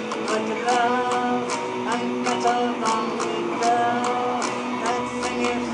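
Electric guitar played through a small amplifier: a hard rock song, strummed with a steady beat under a picked melody line.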